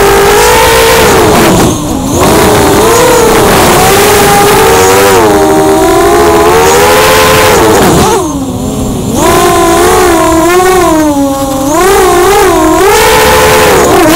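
Vortex 285 FPV racing quadcopter's brushless motors and propellers whining loudly, heard from the craft itself, the pitch constantly rising and falling with the throttle during acro flying. The sound dips briefly about two seconds in and again around eight and eleven seconds, as the throttle is pulled back through rolls and dives.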